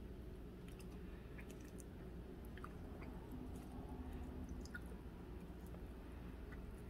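Faint chewing of a mouthful of soft, custardy durian flesh, with small wet mouth clicks scattered through it.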